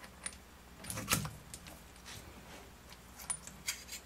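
Light metallic clicks and clinks as the cylinder head of a small Scotch yoke refrigeration compressor is pulled off and handled, the loudest about a second in.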